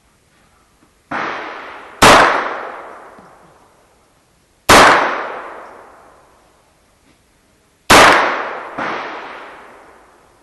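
Three .22 LR pistol shots from a Smith & Wesson 22A firing Remington Yellow Jacket hollow points, spaced about three seconds apart, each cracking sharply and ringing out in a long fading echo. Two quieter sharp bangs come about a second before the first shot and about a second after the third.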